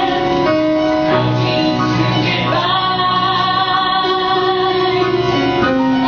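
A female voice singing a slow musical-theatre song over instrumental accompaniment, holding long notes.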